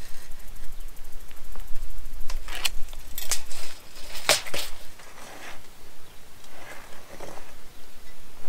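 Long-handled metal digging tool jabbed and scraped into dry, stony soil while a post hole is dug by hand: four or five sharp strikes in the middle, then softer scraping near the end.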